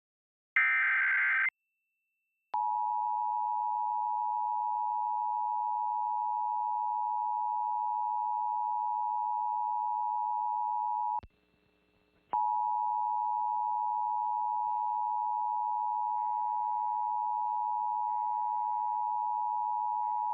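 Emergency Alert System tones: a one-second warble of SAME digital data tones, then the EAS two-tone attention signal (853 and 960 Hz) for about eight and a half seconds. It breaks off for about a second and then sounds again for another eight seconds, ahead of a tornado warning.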